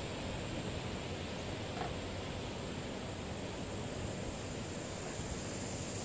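Steady outdoor background hiss, like light wind and rustling, with a thin, steady high-pitched tone above it.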